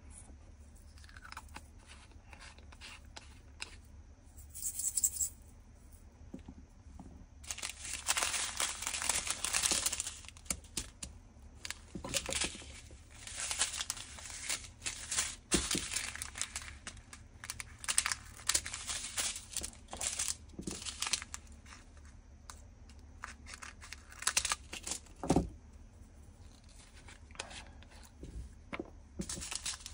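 Small plastic zip bags of diamond-painting drills crinkling and rustling in irregular bursts as a strip of them is handled and torn apart. A single short knock sounds late on.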